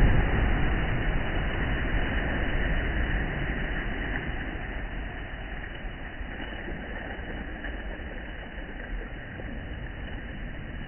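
Sea waves on a shore: a broad rush of surf, loudest at the start, fading steadily over about six seconds into a quieter, even wash.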